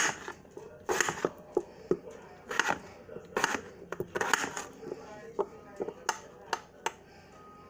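Kitchen knife cutting a raw potato into small cubes on a cutting board: irregular strokes as the blade slices through and knocks the board, with some sharper taps in between.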